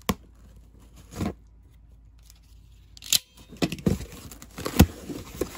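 A knife slicing through packing tape on a cardboard box, a couple of short cuts in the first second or so. About three seconds in comes a sharp rip, then a run of tape tearing and cardboard scraping as the box is pulled open.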